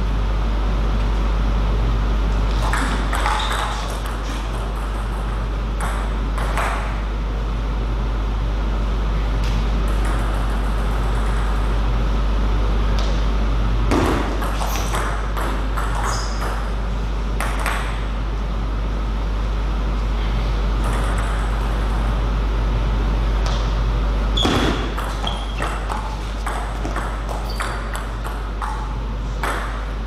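Table tennis ball clicking off the bats and table in short rallies, in groups of quick clicks with pauses between points, over a steady low hum.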